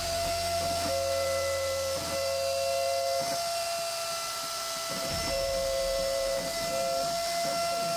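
Trim-router spindle of a small desktop CNC router running with a steady high whine while the machine runs its job. The stepper motors drive the gantry in short moves, adding a second tone that starts and stops several times.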